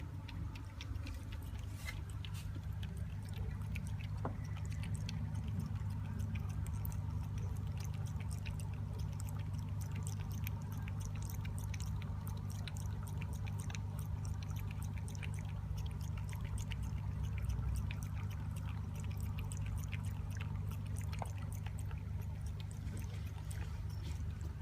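Calico cat lapping water, a long run of small wet clicks from its tongue, over a steady low hum.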